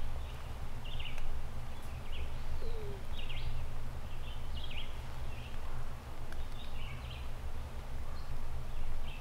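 Songbirds calling: short high chirping notes repeated every half second or so, over a steady low rumble.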